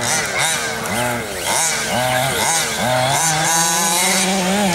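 Two-stroke petrol engines of 1/5-scale RC cars revving up and down again and again in short blips as they are driven, then held at a steadier high rev near the end.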